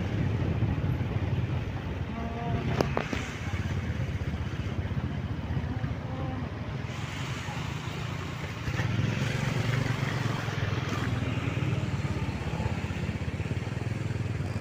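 Motor scooter engine running at a steady cruising speed, with road and wind noise over it. A sharp click sounds about three seconds in.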